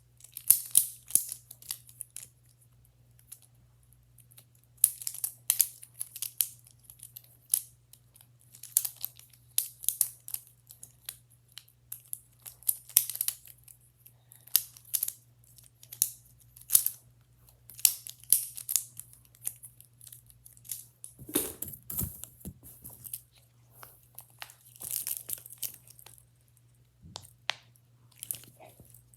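Plastic infinity cube fidget toy being folded and flipped in the hands: irregular light clicks and clacks, with a duller bump about two thirds of the way through. A steady low hum runs underneath.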